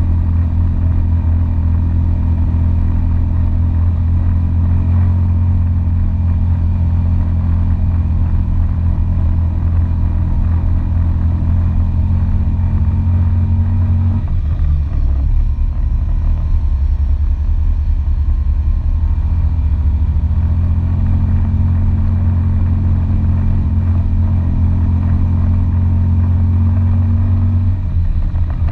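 ATV engine running steadily as it drives along a dirt track, a loud low drone. About halfway through its note drops lower for several seconds, then rises back, and drops again near the end.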